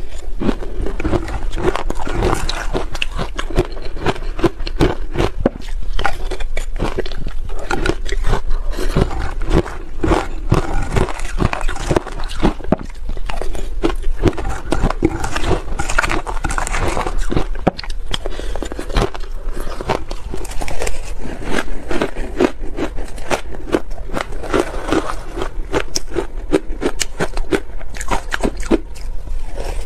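Close-miked crunching and chewing of soft shaved ice: a dense, continuous run of crisp crunches.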